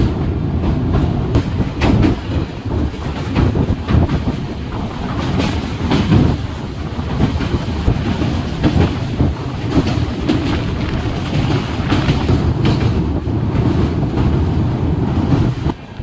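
Duronto Express passenger train running on the rails, heard from on board: a loud steady rumble with irregular clatter of the wheels over rail joints.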